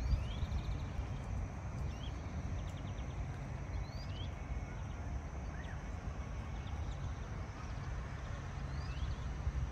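Birds chirping, with short rising calls and quick trills every couple of seconds, over a steady low rumble.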